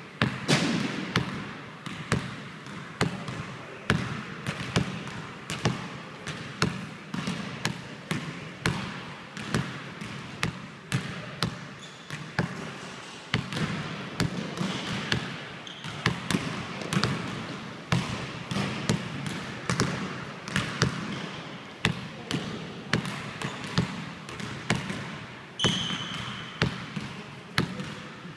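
Basketball dribbled on a hardwood gym floor: sharp, irregular bounces about once or twice a second, each echoing in the large hall. A brief high squeak near the end.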